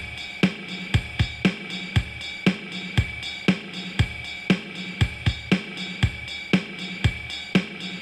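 Background music: a keyboard drum track keeping a steady beat of about two hits a second, with occasional extra hits between, under sustained instrument tones.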